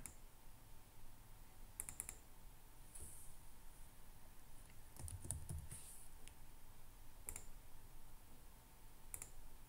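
Faint computer keyboard typing and mouse clicks: a handful of separate keystrokes and clicks, a few seconds apart.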